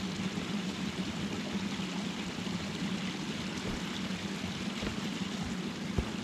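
A river running: a steady rush of flowing water, with one short knock near the end.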